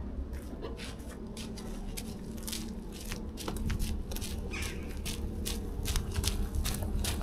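Irregular light clicks and knocks over a steady low rumble.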